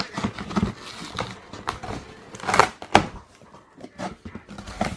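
Cardboard shipping box being pulled open by hand: cardboard flaps and packing tape scraping and crackling, with two louder sharp cracks about two and a half and three seconds in.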